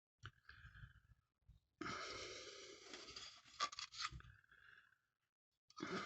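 Faint handling noise, a breathy rustle with a quick run of small clicks near the middle, as a small camera is turned over in the hands.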